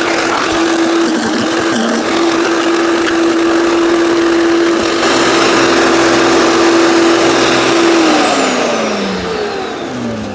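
Electric wood chipper-shredder's 15-amp motor running with a steady whine over the rough noise of branches being shredded. Near the end the motor slows, its pitch falling over about a second and a half.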